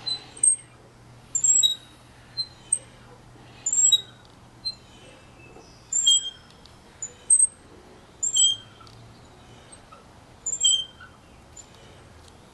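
Toddler bucket swing squeaking in time with its swinging: a pair of short, high squeaks about every two and a half seconds, with fainter ones between. The squeaks stop near the end as the swing comes to rest.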